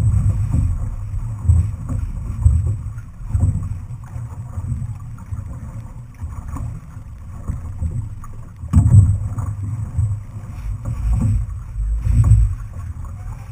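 Outrigger canoe under paddle: water rushing along the hull with low surges and thumps about once a second in time with the crew's strokes, over wind rumble on the microphone.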